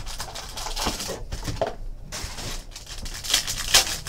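Foil wrapper of a trading card pack crinkling and tearing in the hands as it is opened, in irregular rustling bursts.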